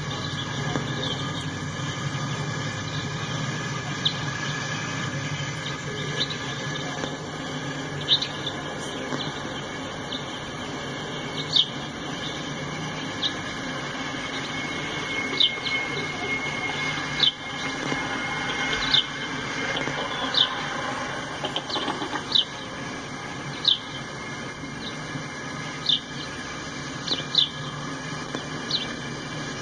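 Freight cars rolling past: a steady rumble of steel wheels on rail, with short high squeaks from the wheels every second or two.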